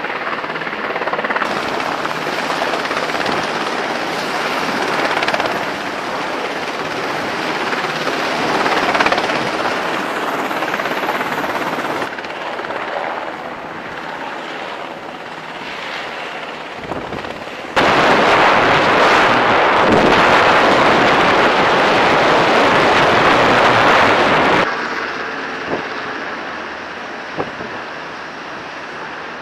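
Steady rushing noise of carrier flight-deck operations: a helicopter hovering with a sling load, with wind and deck machinery. The sound changes abruptly at several cuts and is louder for about seven seconds past the middle.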